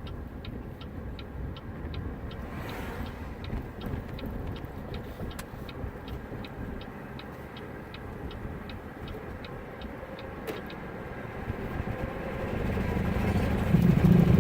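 A car's turn-signal relay ticks steadily, about three clicks a second, over cabin road noise, and the ticking stops about eleven seconds in. Near the end the low engine and road noise swells as the car speeds up.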